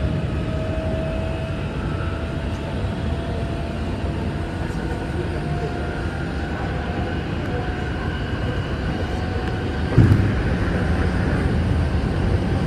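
Commuter train running, heard from inside the carriage: a steady rumble of wheels on the rails with a faint gliding whine from the drive. About ten seconds in there is a sudden knock, and the rumble gets louder after it.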